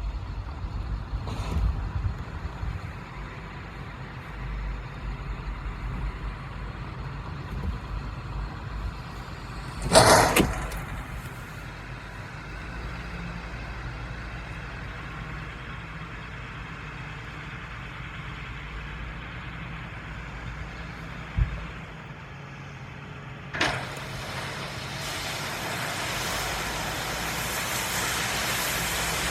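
Heavy farm vehicle engines running steadily, with wind buffeting the microphone. A short loud rush of noise comes about ten seconds in, a sharp click a little past twenty seconds, and a steady hiss that rises and stays for the last few seconds.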